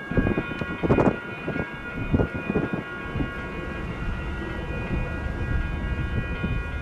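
Freight train cars rolling past, with low rumbling and a few knocks in the first three seconds that settle into a steadier rumble. A steady, thin, high-pitched squeal of several tones, from the wheels or brakes, sounds throughout.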